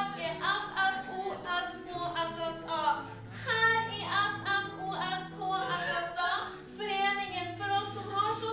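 Music with a woman singing over held low chords.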